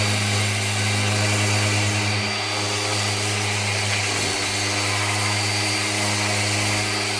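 Power sander with 80-grit abrasive running steadily against the rusted steel body panel, scuffing the pitted metal. It eases slightly about two and a half seconds in and wavers near the middle as the pressure on the panel changes.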